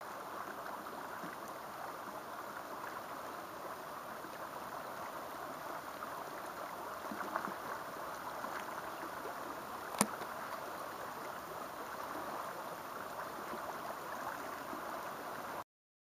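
River water flowing over a shallow, rippling stretch: a steady rush of water, with one sharp click about ten seconds in. The sound cuts off suddenly near the end.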